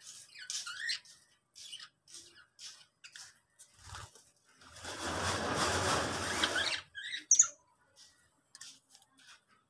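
Lovebirds giving short, shrill chirps and squeaks in quick succession. About halfway through, a dense rustling noise lasts roughly two seconds, with a pair of sharper calls just after it.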